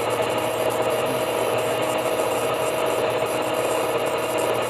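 Brake drum lathe running with a steady mechanical hum and a constant mid-pitched tone, its cutting tool feeding inside the drum.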